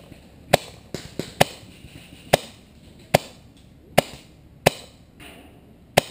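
Paintball marker firing single shots: about nine sharp pops at uneven intervals, roughly one every half second to a second.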